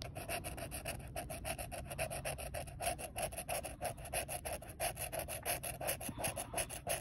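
Scratching the coating off a lottery scratch-off ticket with a hand-held tool: quick, rasping back-and-forth strokes, several a second.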